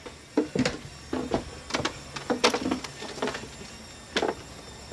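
A series of irregular knocks and clatters, about seven over a few seconds, with uneven spacing and no steady rhythm.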